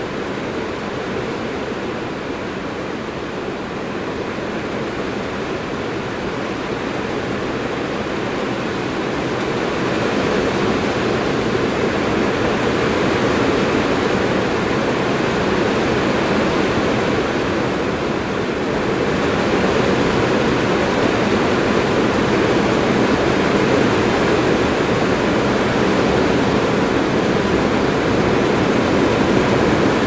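Strong rain falling on a metal roof, a dense, steady patter that grows heavier about a third of the way in and again just past the middle.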